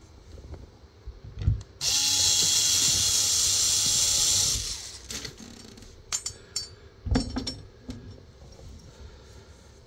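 Small cordless screwdriver driving a screw through a wire rack bracket into the wall: the motor runs steadily for about three seconds, then stops. A few sharp knocks and clinks follow.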